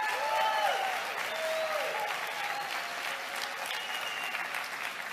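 Audience applauding, with a few voices calling out in the first two seconds.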